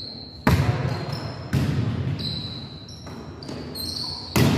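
Volleyball being struck by hands and forearms during a rally on a gym court: two sharp smacks about a second apart, then the loudest smack near the end as a player spikes at the net. Sneakers squeak on the court floor between the hits.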